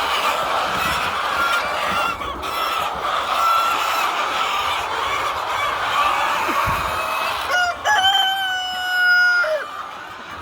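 A large flock of laying hens clucking and chattering together. A rooster crows once near the end, holding its final note for about two seconds before it drops off.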